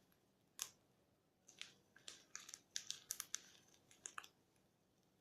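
Homemade foam slime being squeezed and kneaded by hand, giving off faint, irregular sticky pops and clicks.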